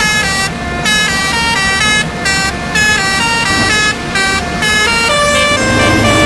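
A bus's multi-tone "telolet" air horn playing a melody: buzzy notes stepping up and down several times a second with a few short breaks, over a low engine rumble.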